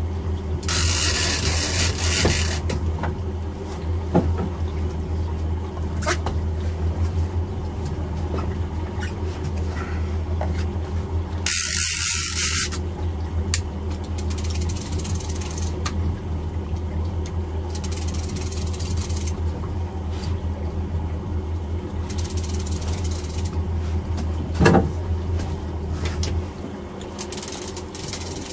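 Boat engine running steadily at low trolling speed, a low drone that drops away about 26 seconds in. Two short bursts of hiss break in, about a second in and again near the middle.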